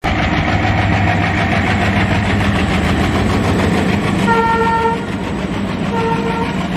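Train running with a loud steady rumble, its horn sounding twice about four seconds in: a longer blast, then a shorter one.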